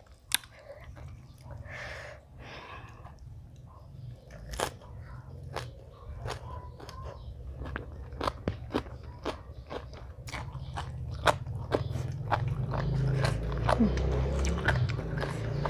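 Close-up chewing and crunching of food, with many sharp crisp clicks, from a person eating spicy papaya salad. A low rumble grows louder in the last few seconds.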